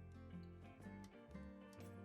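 Quiet background music: a bass line and pitched notes over a light ticking beat.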